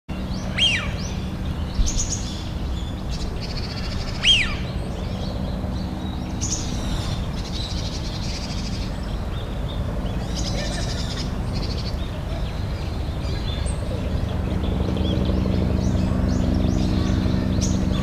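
Wild birds calling: two loud, sharp falling calls, about half a second and four seconds in, with high chirps and twitters from small birds scattered throughout, over a steady low hum.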